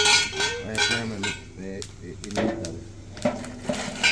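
Dishes and metal utensils clinking in a quick run of sharp knocks, with voices in between.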